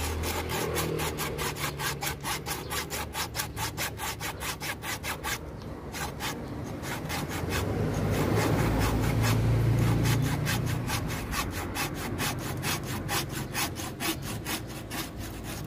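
A small hand saw cutting through a live bougainvillea trunk in quick back-and-forth strokes, about four a second, with a brief pause about five and a half seconds in. A low rumble swells and fades in the middle.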